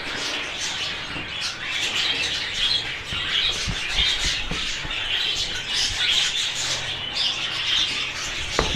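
A roomful of budgerigars chattering and squawking without pause, many short overlapping calls, with a few light knocks.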